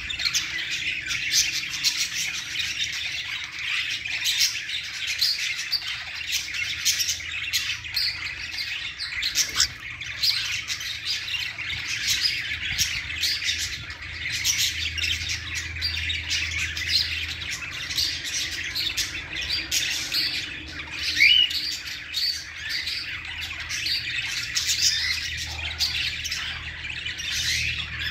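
Caged cockatiels chirping and squawking in a dense, continuous chatter, with one loud rising call about three quarters of the way through.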